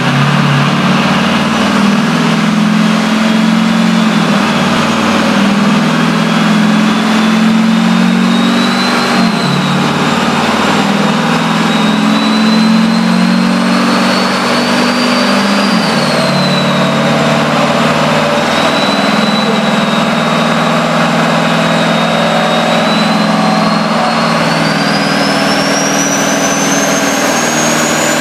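Triple-turbo dually pickup's engine running hard on a chassis dyno, with a high turbo whistle over the engine note. The engine note drops in pitch twice, about a third of the way in and about halfway in. Over the last few seconds the whistle climbs steadily as the turbos spool up.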